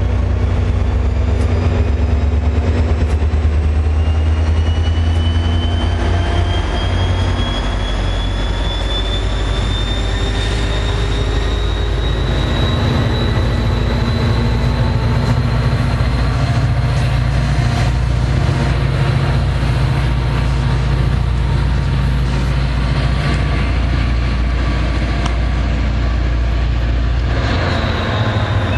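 NJ Transit diesel locomotive and train running loud, a deep engine rumble under a whine that slowly rises in pitch as the train gathers speed. Near the end a rush of rail noise comes in.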